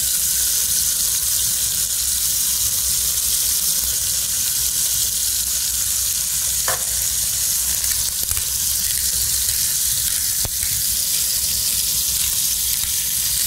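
Chicken breasts searing in hot oil in a nonstick pot: a steady high sizzle, with a couple of faint ticks midway.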